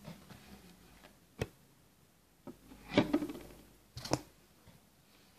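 A few sharp clicks and taps: handling noise on a hand-held phone. One click comes about one and a half seconds in, a short rattling cluster about three seconds in, and two quick clicks just after four seconds.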